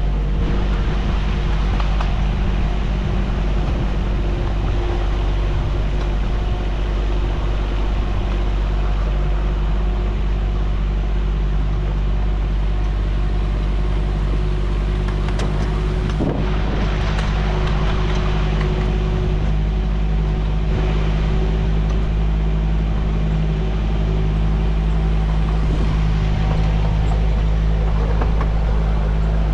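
Engine of a 10.25-inch gauge miniature railway locomotive running steadily, a constant low hum.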